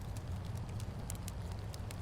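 Wood fire crackling in a fireplace: scattered small sharp pops and ticks over a steady low rumble.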